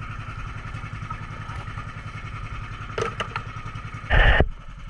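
A small fishing boat's engine runs steadily with a fast, even putter. A few clicks come about three seconds in, and a short, loud burst of noise comes near the end.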